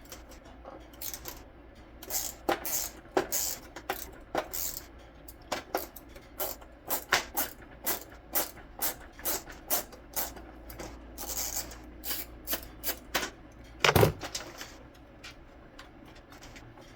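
Irregular clicks and taps of hand tools and plastic parts being handled while a car headlight is disassembled, with one louder knock about fourteen seconds in.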